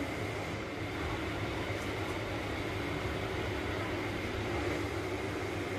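Steady low humming and rumbling background noise with a faint thin high whine, unchanging throughout; the pour of yeast into the flour makes no distinct sound of its own.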